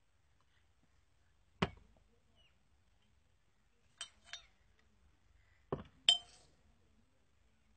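Glass bottles clinking and knocking, five short strikes in all: one about one and a half seconds in, a pair near four seconds, and a pair near six seconds. The last strike is the loudest and rings briefly.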